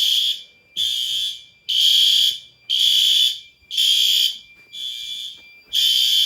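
Several fire alarm horn strobes sounding the code-3 temporal pattern at low volume, unsynchronised with one another. Their blasts run on at about one a second as the devices overlap.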